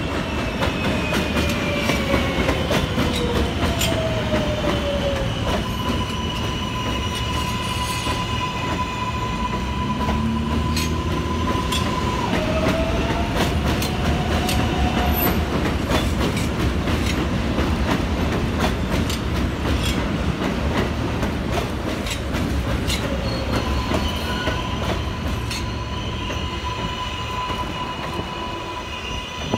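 R143 subway train running along an elevated steel structure: a heavy rumble with wheels clacking over rail joints. A whine falls in pitch in the first few seconds, and a steady high wheel squeal comes in twice.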